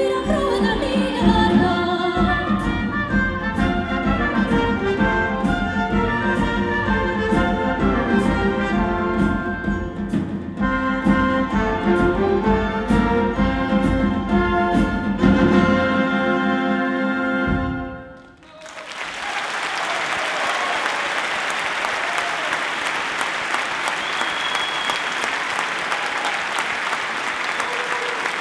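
Final bars of an orchestra and children's choir with a steady beat, ending about 18 seconds in, followed by the audience applauding.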